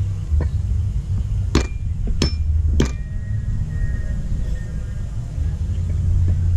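Heavy cleaver striking a thick wooden chopping block three times, evenly spaced about half a second apart, working garlic cloves.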